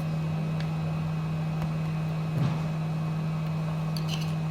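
A steady low hum, with a few faint light clicks about halfway through and again near the end, typical of small tools working on a phone.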